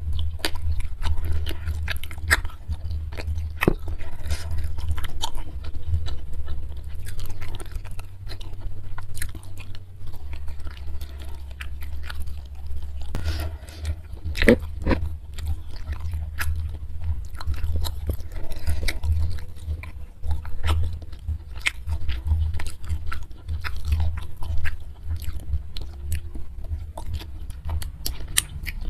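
Close-miked chewing of beef dendeng balado and rice eaten by hand, with irregular wet mouth clicks and crunches throughout and one sharp snap about halfway through.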